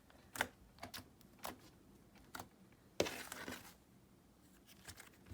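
Soft clay slime being squeezed and pressed by hand, giving scattered small clicks and pops, about five in all, with a longer squish about three seconds in.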